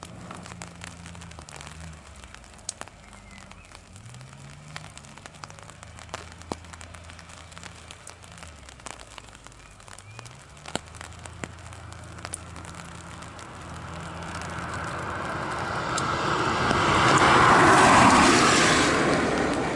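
Raindrops ticking on an umbrella over a low machine hum that rises in pitch a couple of times. Then a vehicle passes with a rushing swell that builds and is loudest near the end.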